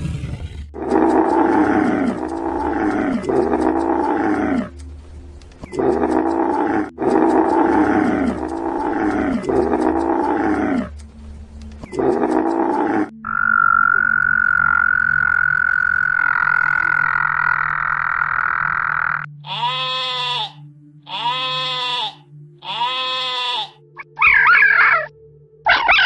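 A run of animal calls. Repeated croaking calls come in clusters for about twelve seconds. Then a frog gives one long, steady trill of about six seconds, followed by about four more spaced calls and higher-pitched calls near the end.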